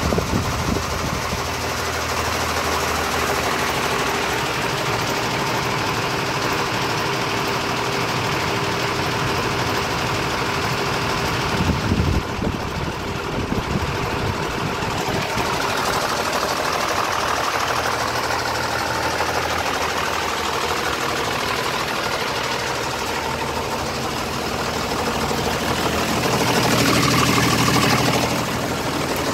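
Diesel engine of a 1991 Renault TRM 150 truck idling steadily, louder for a couple of seconds near the end.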